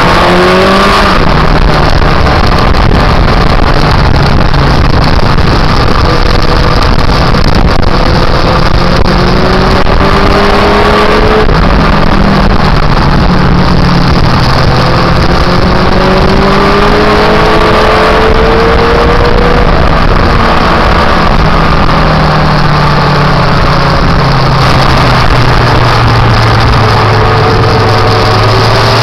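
Motorcycle engine running while riding at road speed, its pitch rising and falling several times as the rider accelerates and eases off. Heavy wind noise on the microphone runs under it.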